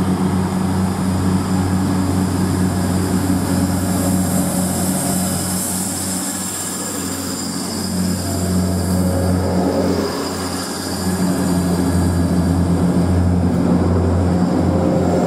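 Hull Trains Class 180 diesel multiple unit running slowly alongside the platform, its underfloor diesel engines droning steadily with a thin high whine above them.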